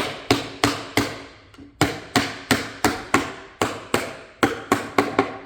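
Rubber mallet knocking a phenolic plywood shelf panel onto its tenons: a quick run of sharp knocks, about three a second, with a short pause a little over a second in.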